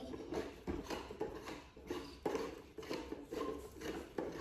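Light, irregular clicks and knocks of exercise-equipment parts being handled and fitted together by hand.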